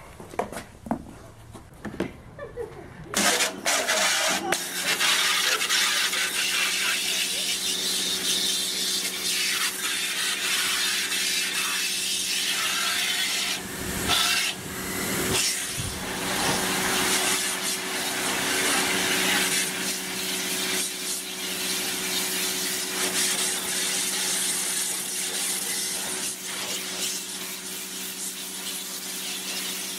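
Dedra 1900 W electric pressure washer running: its motor and pump hum steadily while the high-pressure water jet hisses and spatters against the metal bowl and lid of a grimy kettle grill. The spraying starts about three seconds in, after a few quiet clicks and rustles, and briefly drops away twice in the middle.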